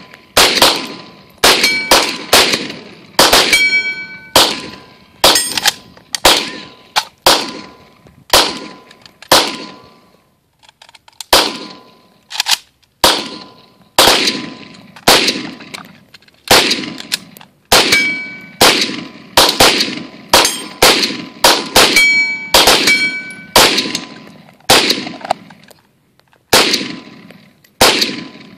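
Semi-automatic rifle shots fired one at a time, about one or two a second, with a short lull about ten seconds in. Some shots are followed by a ringing metallic ping.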